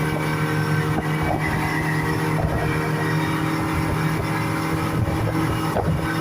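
Speedboat engine running steadily at an even pitch.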